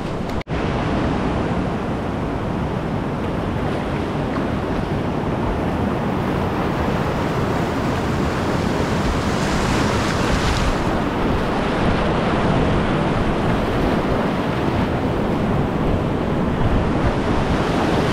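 Whitewater river rapids rushing, a steady loud noise of moving water, with a brief dropout about half a second in and a hissier stretch around ten seconds in.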